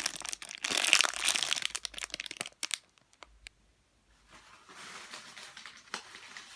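Plastic packaging crinkling and crackling as it is handled, dense for the first two and a half seconds, then a brief pause and fainter rustling with a few clicks.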